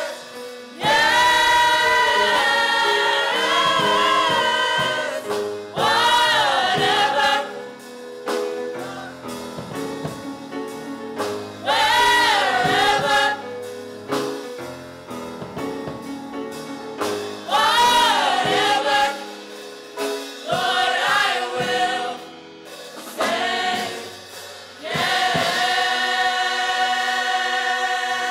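Gospel choir singing in harmony in phrases separated by short pauses, with voices sliding and bending in pitch over sustained chords. Near the end the choir holds one long chord.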